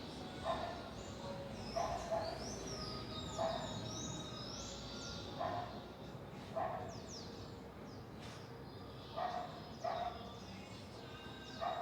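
Birds calling: high sweeping chirps and whistles through the first half, over short, lower calls repeated every second or two.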